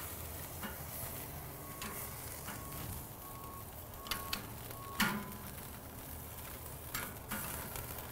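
Filet mignon steaks sizzling on a hot grill grate over charcoal, a steady hiss. Sharp clicks of metal tongs against the grate break in a few times past the middle, the loudest about five seconds in.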